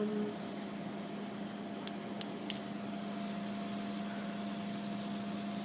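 Steady hum of a refrigerated vending machine running, with three short clicks in quick succession about two seconds in.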